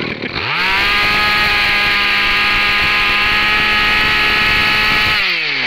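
26cc two-stroke brush cutter engine with a 34 mm bore revved up to full throttle, rising quickly, held steady at high revs for about four and a half seconds, then dropping back toward idle near the end.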